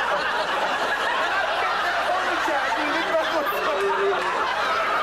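Studio audience laughing steadily, many voices overlapping, with some chatter mixed in.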